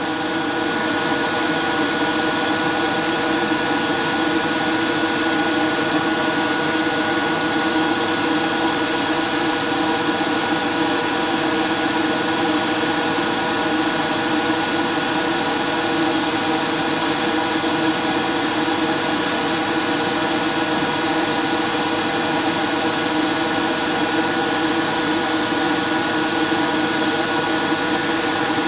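Airbrush spraying paint over a steady motor hum with a thin high whine from the airbrush compressor and spray booth running. The air hiss drops out briefly every few seconds as the airbrush trigger is released between passes.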